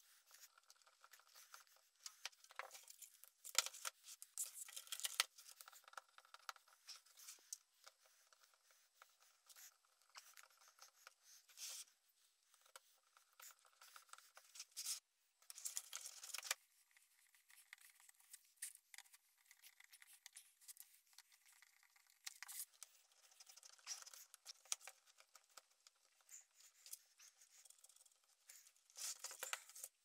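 Faint assembly sounds of a screwdriver turning PC case fan screws into plastic fan frames through a 3D-printed PLA case. Irregular scraping and creaking turns with small clicks come and go, louder in stretches about three to five seconds in and around sixteen seconds.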